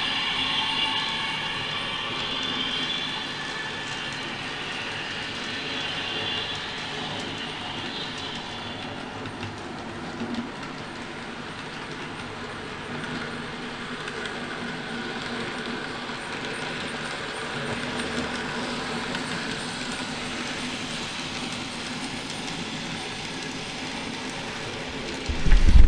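Sound-fitted N gauge Class 321 electric multiple unit model running on the layout, its DCC sound decoder playing electric-train sounds through its small speaker: several steady high whining tones for the first eight seconds or so, then a more even running sound. A loud low rumble breaks in at the very end.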